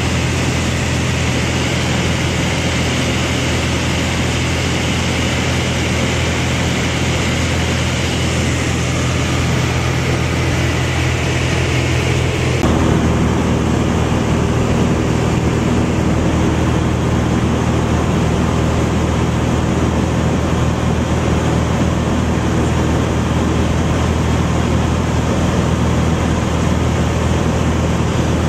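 Steady drone of a single-engine Cessna's piston engine and propeller, heard from inside the cabin in cruise flight. The hum shifts slightly in tone about halfway through.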